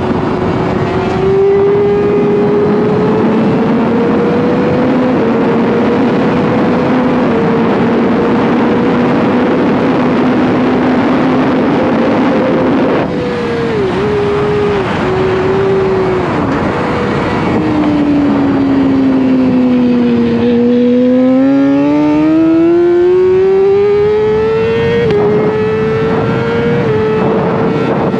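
600cc racing motorcycle engine at high revs over a steady rush of wind. The pitch climbs with small drops at the upshifts, then dips sharply several times around the middle as it brakes and downshifts. It sinks slowly, then rises long and hard under full throttle, with two more upshift drops near the end.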